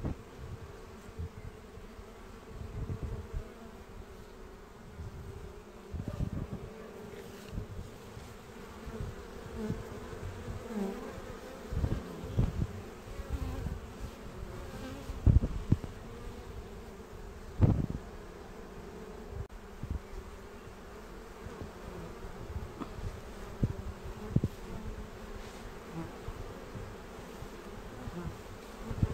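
Honeybees buzzing around their hive entrances: a steady hum of many bees flying in and out. Several low thumps come and go, loudest about halfway through.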